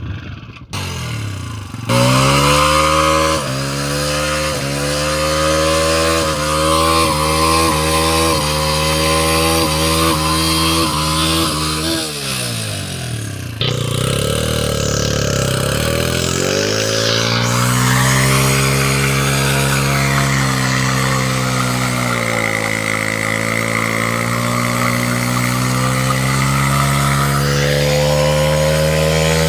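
Motorcycle engine held at high revs in a burnout, the rear tyre spinning against the ground to wear it through. The revs waver for about ten seconds, drop away briefly, then climb again and hold steady.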